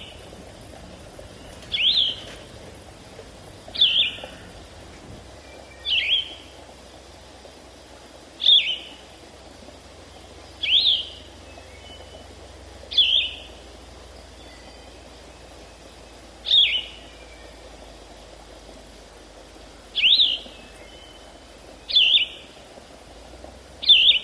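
A bird giving the same short, sharp call over and over, about once every two seconds, above a steady faint background hiss.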